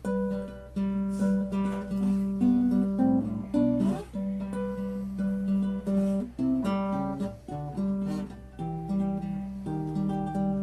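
1964 Gibson C-1 classical guitar, nylon-strung, fingerpicked: a continuous run of plucked single notes and chords, played just after its bridge was re-glued.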